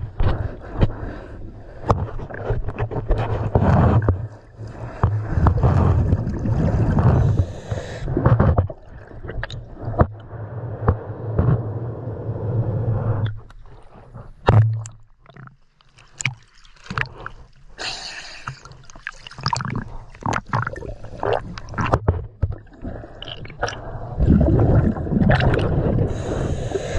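Underwater sound of a scuba diver breathing through a regulator, the exhaled bubbles gurgling in surges every few seconds, with scraping and clicking against a boat hull during hull cleaning.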